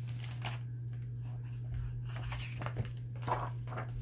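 Pages of a hardcover picture book being turned by hand: a few short papery rustles and flicks, the clearest in the second half. A steady low hum runs underneath.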